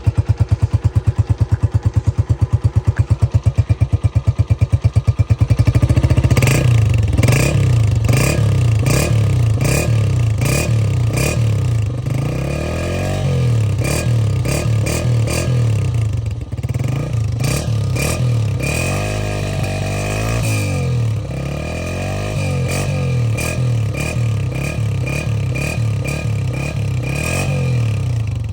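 Honda 125 single-cylinder engine fitted with an aftermarket whistler silencer, idling with even exhaust pulses for about six seconds and then revved up and down repeatedly. Each rev brings a high whistle from the silencer, with little bass in the exhaust note.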